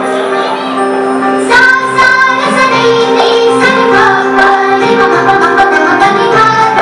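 Devotional song with a woman singing over held instrumental chords; about a second and a half in, percussion comes in with a steady beat.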